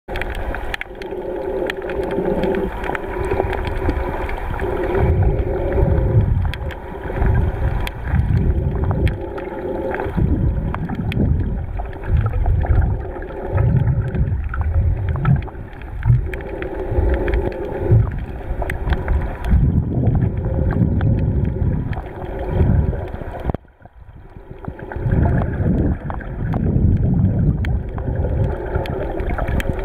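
Underwater noise over a coral reef: muffled water rushing that swells and ebbs in rhythmic surges every second or two, with a fine crackle of small clicks throughout. It drops away suddenly about three-quarters of the way through, then builds back up.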